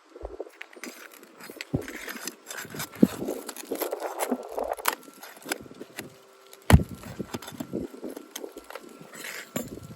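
Hammer and pry bar working nails out of old asphalt 3-tab shingles, with scraping and rustling of the shingles. There are several sharp knocks, the loudest about two-thirds of the way in.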